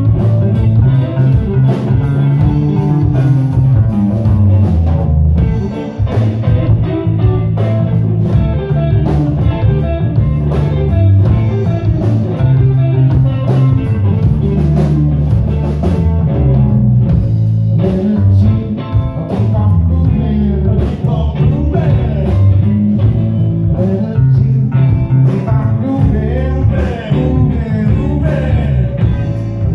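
A live band playing: electric guitar over a driving electric bass line and a drum kit keeping a steady beat.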